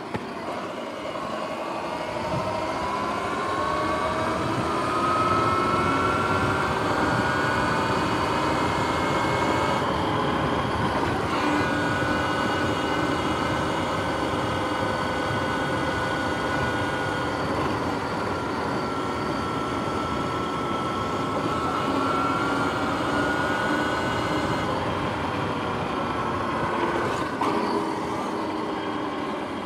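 Sur-Ron X electric dirt bike's motor and drivetrain whining under way, the pitch climbing over the first several seconds as the bike gathers speed and then holding steady, over wind and tyre rush.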